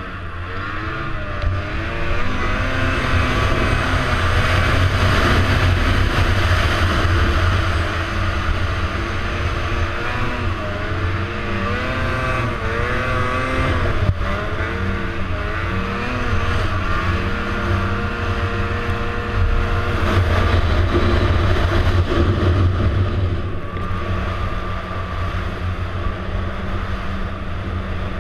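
Snowmobile engine running under load through powder snow, its pitch rising and falling again and again with the throttle, heard from the rider's helmet. It eases off somewhat from about 23 seconds in.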